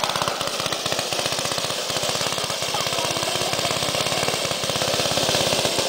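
A go-kart's small engine running under throttle with a rapid, even pulsing beat. It is a little fainter about a second in and grows louder again toward the end as the kart drives off and comes back.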